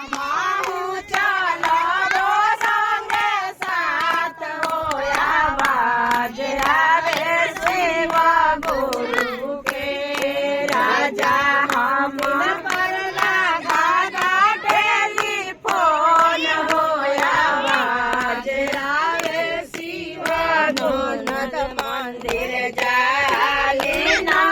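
Voices singing a Bhojpuri Shiv charcha devotional song over steady rhythmic hand clapping.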